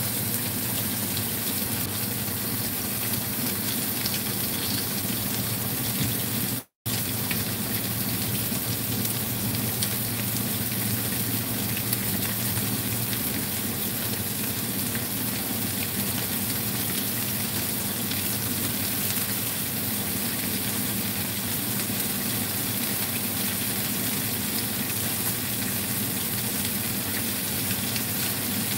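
Mayao fish pan-frying in a little oil in a non-stick wok: a steady frying sizzle. The sound cuts out completely for a moment about seven seconds in.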